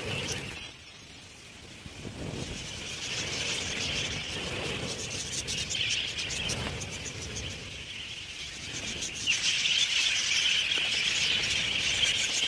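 A large flock of budgerigars chattering and chirping, a dense, continuous twitter. It grows louder about three-quarters of the way through.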